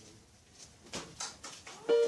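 A few soft knocks and clicks, then an electronic keyboard's first note comes in right at the end, opening a melody.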